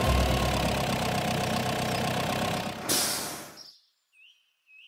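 Truck engine sound effect running steadily as the cartoon water tanker truck drives in. About three seconds in it ends in a short hiss as the truck stops, and then it goes almost silent.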